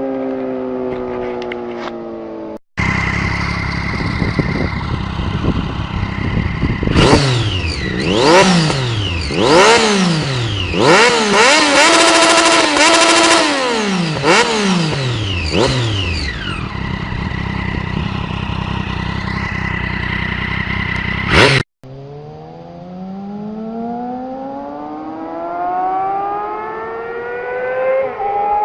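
Motorcycle engines from several spliced clips. The first drops in pitch as it slows. After a hard cut, another is revved hard in a string of quick blips that rise and fall sharply. After a second cut, a third climbs steadily in pitch as it accelerates.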